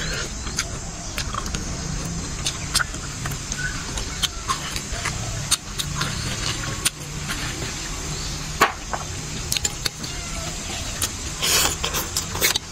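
Close-up eating sounds: wet chewing and lip smacks as a piece of meat is bitten and chewed, then a noisy slurp of noodles near the end, over a steady low rumble.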